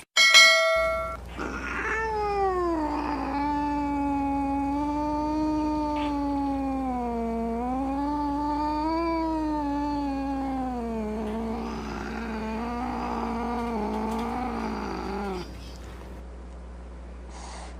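A brief steady tone, then a single long cat-like yowl held for about fourteen seconds, its pitch wavering slowly up and down before it sags and stops. A low steady hum runs underneath.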